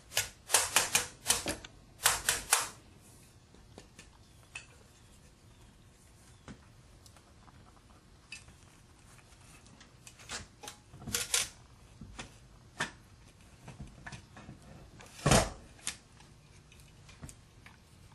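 Sharp metal taps and clinks as an electric motor's case and end bell are worked back together: a quick run of taps in the first few seconds, a few more around ten seconds in, and one heavier knock about fifteen seconds in.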